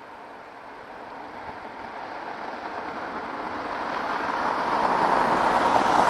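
A passing vehicle approaching, its rushing noise growing steadily louder.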